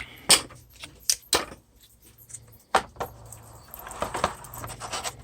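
A few sharp clicks and knocks from wooden sanding boards and sticks being handled and set down, with a faint scraping in the second half.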